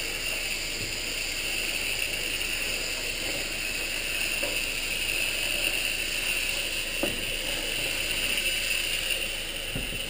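Steady hiss of a pressurized coil-cleaning spray gun washing a dirty air-handler evaporator coil, over a low machinery rumble. There is a light tap about seven seconds in.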